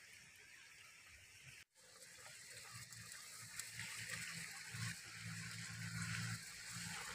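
Chicken broth boiling hard in a large metal pot over a wood fire, a steady bubbling hiss. It cuts out for a moment about two seconds in, then comes back louder.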